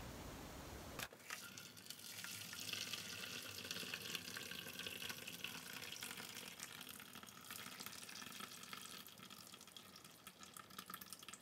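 Dashi stock being poured from a saucepan through a paper-towel-lined strainer into a bowl: a faint, steady trickle of liquid.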